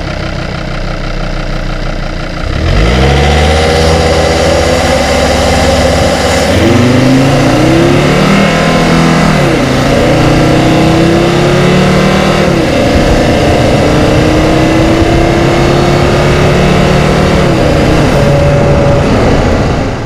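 Volvo XC90 D5's 2.4-litre five-cylinder turbo diesel, heard from inside the cabin, idles for a couple of seconds and then pulls hard under full throttle. The engine note climbs steadily in pitch, dropping back at each upshift, through a flat-out 0-100 km/h acceleration run.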